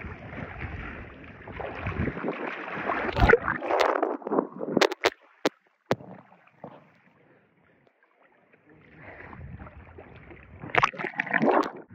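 Swimming-pool water splashing and sloshing against a phone's microphone at the water surface, with a few sharp clicks about five seconds in. The sound then drops to a muffled near-quiet for a few seconds before the splashing returns near the end.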